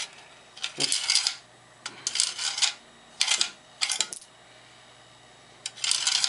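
Coins fed one after another through the coin slide of a coin-operated timer with its timer wheel removed, a test that they feed without obstruction. Each coin gives a short metallic clatter as it slides and drops through; there are about five, a second or so apart.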